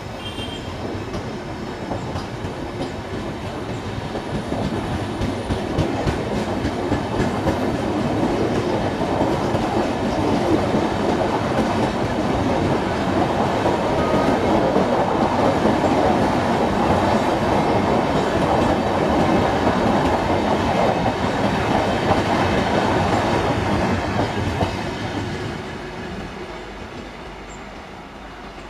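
Passenger coaches of an Indian Railways express train rolling past at speed, their wheels clattering over the track. The clatter grows louder through the first third and fades away near the end as the last coaches go by.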